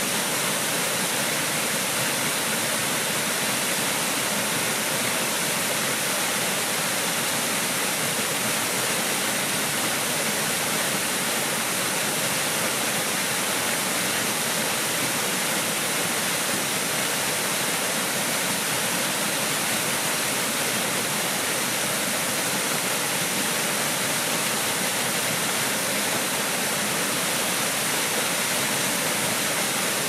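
A waterfall, a single thin stream of water plunging down a rock face into a shallow pool, making a steady, unbroken rushing hiss.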